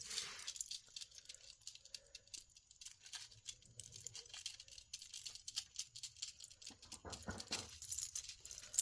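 Faint, scattered small clicks and light rattling of costume jewelry being handled.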